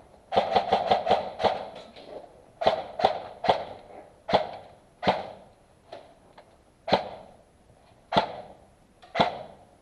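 Airsoft rifles firing in a cinder-block hallway: a fast burst of shots from about half a second in, then single shots every second or so. Each shot has a short echo.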